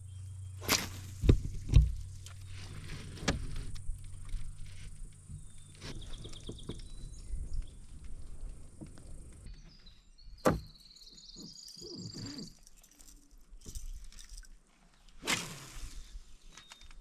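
Knocks and thumps on a canoe as it is paddled: three loud knocks close together about a second in, then scattered softer knocks. A steady low background hum stops abruptly about halfway through.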